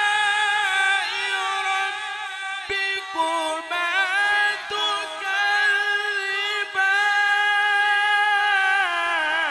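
Male Quran reciter's voice in melodic tajweed recitation, stretching syllables into long held notes with wavering ornaments. There is a brief break about three seconds in, and the pitch steps down near the end.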